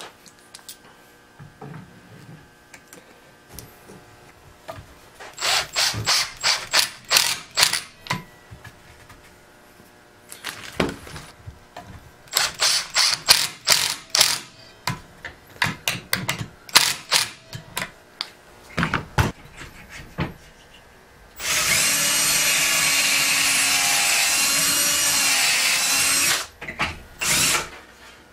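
Cordless impact driver driving pocket-hole screws into cedar boards, in two runs of short bursts about five seconds in and about twelve seconds in, with smaller bursts after. Later a louder steady machine noise runs for about five seconds, followed by a few knocks.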